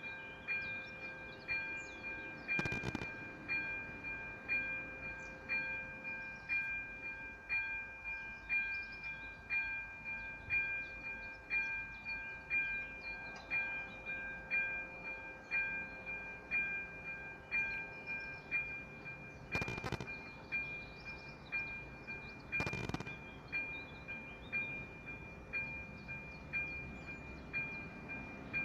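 Level crossing warning bell ringing steadily, about one stroke a second, signalling that a train is approaching. Birds chirp faintly, and there are a few brief knocks.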